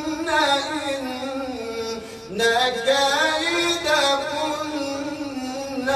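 A man's voice chanting Quranic recitation in a drawn-out melodic style, holding long wavering notes, with a brief breath about two seconds in.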